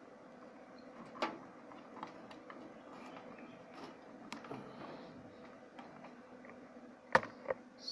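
Cable plugs being pushed into the ports of a small plastic VGA TV box: scattered short clicks and taps of connectors and fingers on the casing, the two sharpest close together near the end.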